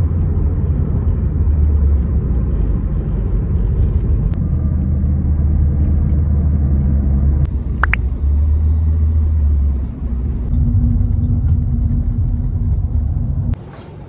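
Road noise inside a moving car's cabin: a steady low drone of engine and tyres, cutting off sharply near the end.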